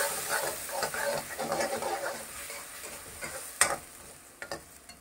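Tomato puree being stirred and fried in hot oil with onion masala in a kadhai: repeated spoon-scraping strokes over a sizzle, with two sharp knocks near the end as the sound dies down.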